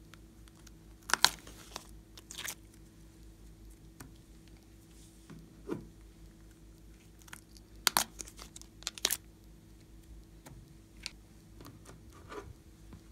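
Scattered sharp, sticky crackles and clicks from handling moulded pieces of slime and laying them onto glossy slime. The loudest come about a second in and again around eight to nine seconds.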